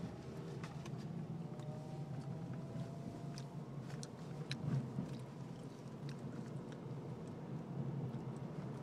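Steady low engine and road rumble heard inside a moving car, with a faint whine rising in pitch over the first few seconds. Light clicks and taps are scattered throughout.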